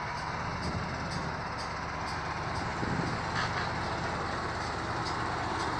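KamAZ timber truck's diesel engine running steadily.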